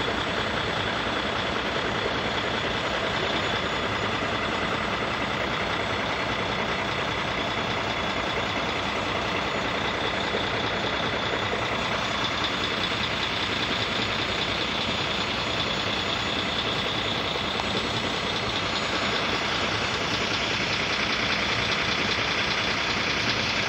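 Railway level-crossing warning bell ringing continuously and steadily, with road vehicles idling at the lowered barriers underneath.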